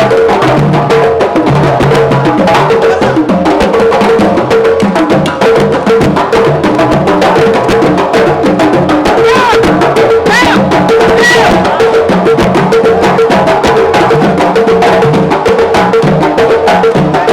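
Music with a steady drum and percussion beat.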